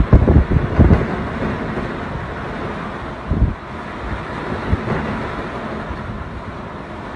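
Hurricane wind and driving rain, gusts buffeting the microphone hardest in the first second and again about three seconds in, over a steady hiss of rain and wind.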